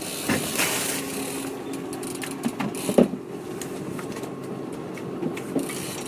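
A small motor running with a steady whirring hum, with a few short knocks near the start and about three seconds in.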